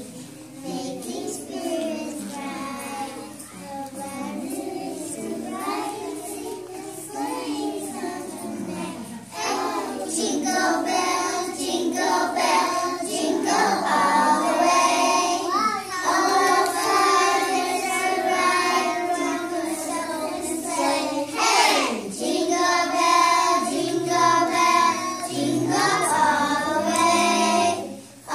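A group of young children singing a song together, softer at first and louder from about nine seconds in.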